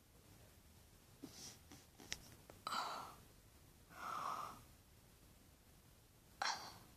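A girl breathing out hard twice, close to the microphone with her mouth open, each breath about half a second long. A few light clicks come before the breaths, and a short sharp breath comes near the end.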